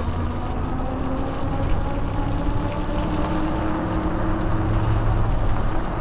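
Car engine running at a steady speed with road noise, heard from inside the vehicle while driving.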